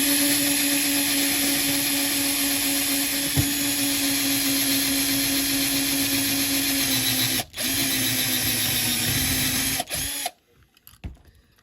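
Small electric drill running steadily under load, drilling out the rivets that hold a diecast toy car's base on. It runs with a steady pitch, stops briefly about seven and a half seconds in, runs again and stops near the end.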